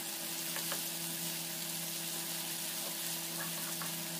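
Sliced onions and garlic sizzling in oil in a frying pan on a low flame, a steady hiss, while a wooden spatula stirs them with a few light scrapes. A steady low hum runs underneath.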